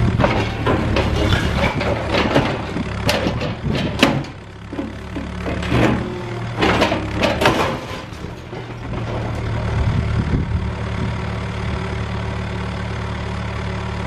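Cat 305E2 mini excavator's diesel engine running under load. In the first half, several sharp knocks and crashes come through as concrete and debris break and fall. The engine then runs on steadily without impacts.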